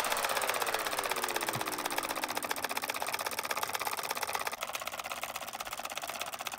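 Homemade two-coil solenoid engine running fast, its plungers and switching contacts making a rapid, even clatter.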